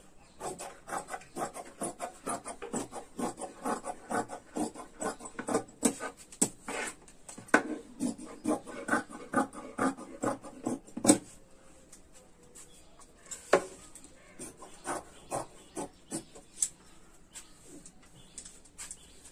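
Tailor's scissors cutting through folded fabric: a quick run of snips, thinning out to occasional single snips after about eleven seconds.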